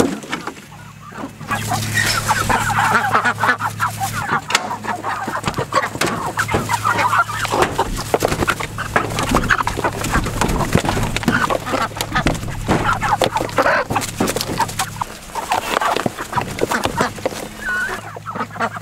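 A flock of chickens calling and squabbling as they crowd a feed trough, with wings flapping and many quick pecks and scuffles, starting about a second and a half in.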